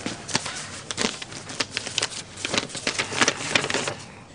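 A folded paper letter being handled and opened out, with quick, irregular rustles and crinkles that stop shortly before the end.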